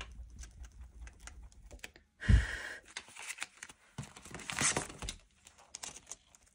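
Hands handling paper banknotes and a challenge card: rustling and light tapping, with one louder thump and rustle about two seconds in.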